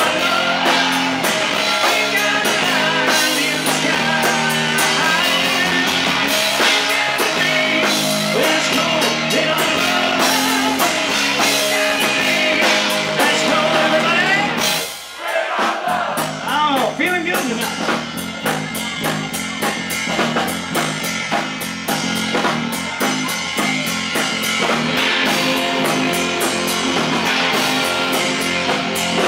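Live rock band playing: distorted electric guitars, drum kit and a man singing, picked up on stage from the amps and monitors rather than the mixed PA. The music breaks off briefly about halfway through, then comes back in.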